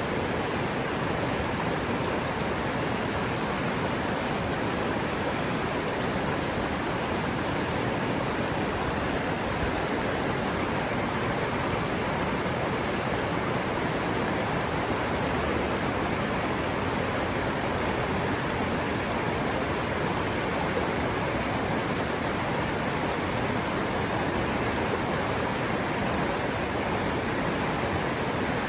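River water running steadily over rocks: an even, unbroken rush with no distinct splashes or birdsong standing out.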